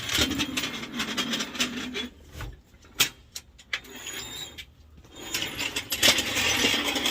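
Car jack being pumped under a pickup, a ratcheting, creaking mechanism working in two spurts with a few sharp clicks between them.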